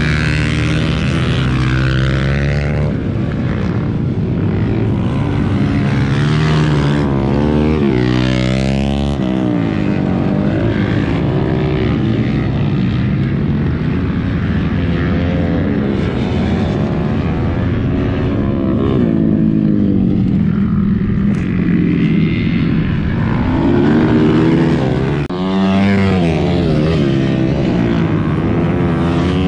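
Several racing motorcycles on a dirt TT track, their engines revving hard as they race past, the pitch climbing and dropping again and again through shifts and corners. The passes are loudest right at the start, around seven to nine seconds in, and again near twenty-five seconds.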